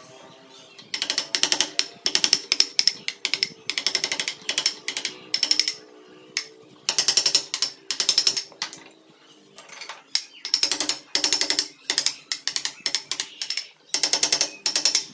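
Wood-carving chisel cutting into a wooden carving: short bursts of rapid sharp clicks and cracks, about one burst a second, with brief pauses.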